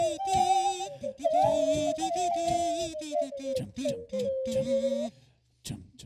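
A high-pitched voice singing a wavering, gliding melody. It cuts off about five seconds in, leaving a few faint short sounds.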